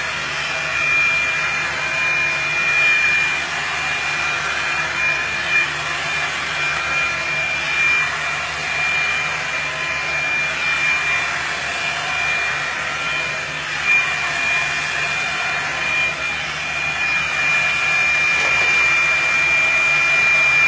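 Revlon blow dryer brush running steadily, a continuous rush of blown air with a high, steady whine from its motor.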